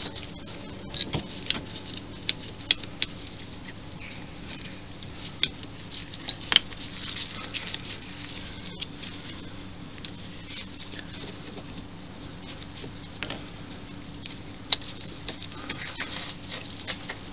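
Small metal lathe parts and hand tools being handled: irregular light clicks, taps and scrapes of metal on metal, a few of them sharper, over a steady low hum.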